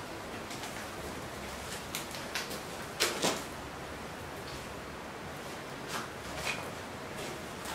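Footsteps and small scuffs and knocks as people move through a dark, empty room, over a steady low hiss; the sharpest is a quick pair of knocks about three seconds in.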